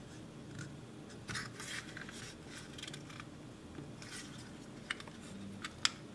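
Plastic smart-plug housing being handled and turned in the hands: faint scraping and rubbing of plastic parts, with two sharp plastic clicks near the end.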